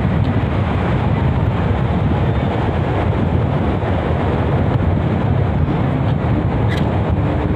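Wind buffeting the microphone at the beach, a steady low rumble, with the wash of surf beneath it.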